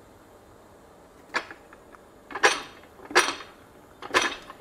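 Fly press with a hexagon punch being worked on a hot steel bar: four sharp metallic clanks about a second apart, each with a short ring.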